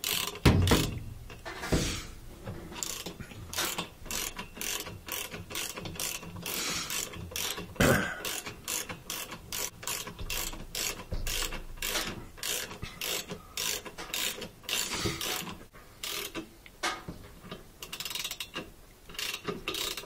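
Ratchet wrench clicking over and over as it runs down the centre bolt holding the rotor on an LG direct-drive washer motor.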